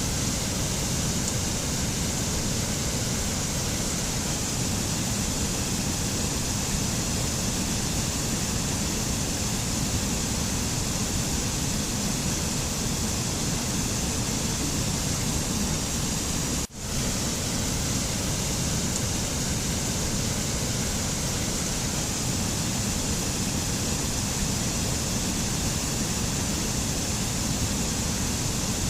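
Steady rushing nature ambience, an even hiss-and-rumble without any tune, like distant falling water or wind on a mountain. It drops out for a split second about seventeen seconds in, then carries on unchanged.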